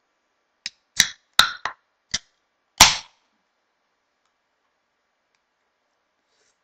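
A Monster Energy aluminium can being opened by its pull tab: a few sharp clicks as a fingernail catches and lifts the tab, then a louder crack with a short fizz as the can pops open, nearly three seconds in.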